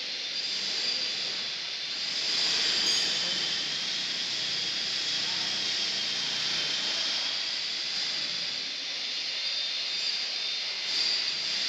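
Steady hiss with a faint high-pitched whine running through it, slightly louder about two to three seconds in: background machine noise.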